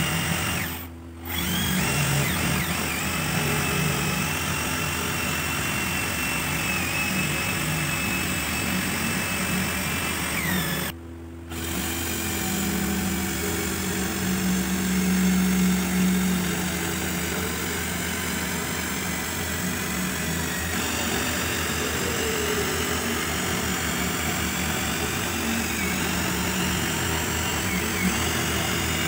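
Electric drill running steadily, spinning a wooden strip through a homemade dowel maker made from a nut, which shaves it into a round dowel. The motor whine and wood cutting drop out briefly twice, about a second in and about eleven seconds in.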